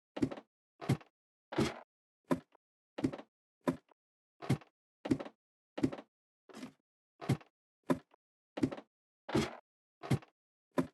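A steady series of short, dull thuds, about sixteen of them at roughly one every 0.7 seconds, with dead silence between them.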